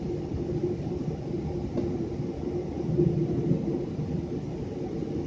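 Steady low rumble inside the cabin of a Boeing 777 taxiing, its engines running at low thrust with a constant hum over the rolling noise of the wheels on the taxiway.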